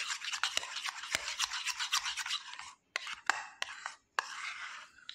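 Steel spoon stirring and scraping a thick homemade face-pack paste around a small bowl: a steady wet rasping with many small clicks, breaking into shorter separate strokes in the second half.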